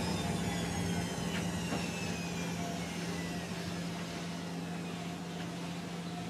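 Heavy vehicle engine running steadily with a low hum, and a high whine that falls slowly in pitch over the first few seconds.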